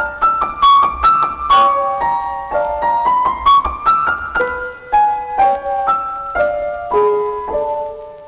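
Classical keyboard music: a line of quick, separately struck notes over a few accompanying voices, growing softer near the end.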